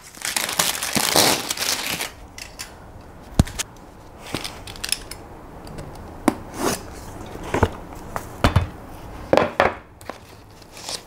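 Plastic wrap crinkling as it is peeled off a cardboard product box for about the first two seconds, followed by a string of scattered taps, knocks and short scrapes as the box is handled and opened.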